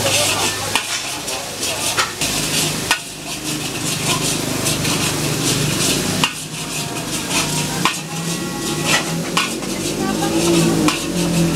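Metal spatula scraping and clacking against a wok while spice paste sizzles in hot oil, with frequent sharp clicks over a steady frying hiss. This is the stage where the freshly pounded bumbu for nasi goreng is being fried before the vegetables go in.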